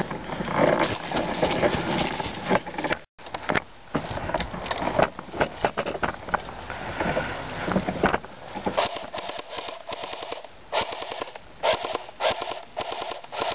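Irregular rustling, scraping and clicking close to the microphone, with a brief dropout about three seconds in.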